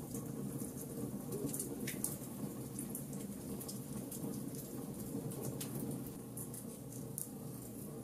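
Logs burning in a fireplace: a steady low rumble of flames with frequent, irregular sharp crackles and pops, the loudest pop about two seconds in.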